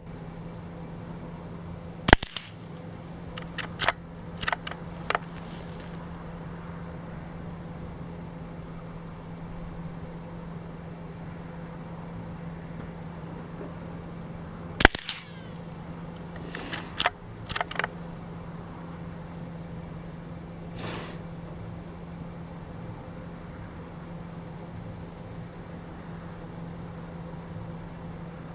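Two sharp shots from a CZ 455 bolt-action .22 LR rifle firing Lapua Center X match ammunition, about two seconds in and about fifteen seconds in. Each shot is followed over the next few seconds by a few smaller clicks of the bolt being worked to eject the case and chamber the next round. A steady low hum runs underneath.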